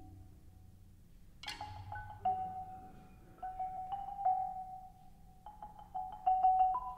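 Marimbas played with mallets. After a quiet opening, there is a sharp bright strike about a second and a half in. Sparse single ringing notes follow, giving way to quick repeated notes near the end.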